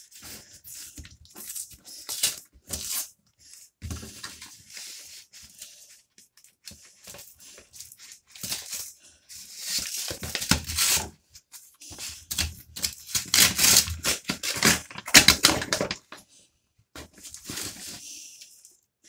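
A cardboard comic mailer being torn open and the comics inside handled: irregular tearing and rustling of cardboard and paper, loudest about ten seconds in and again from about thirteen to fifteen seconds.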